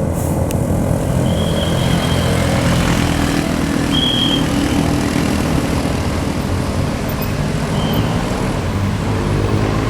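Heavy diesel bus engine running with a steady low drone. A few faint, short high-pitched tones come in over it.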